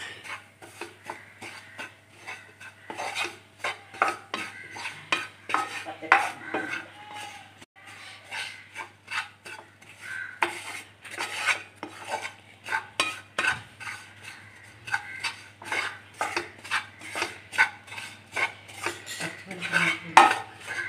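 Wooden spatula stirring and scraping grated coconut mixed with spice powders around a pan, a run of quick, irregular scrapes and taps against the pan.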